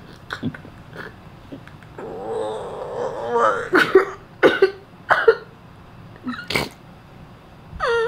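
A person coughing and clearing the throat in a string of short, sharp coughs, loudest around four to five seconds in. A drawn-out, high vocal whine starts just before the end.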